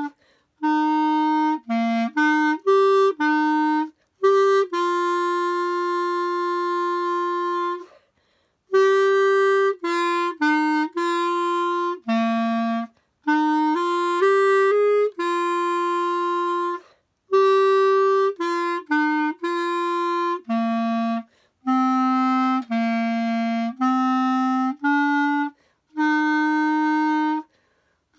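Solo clarinet playing a melody in short phrases of separate notes, broken by brief pauses for breath, with one long held note from about four and a half to eight seconds in.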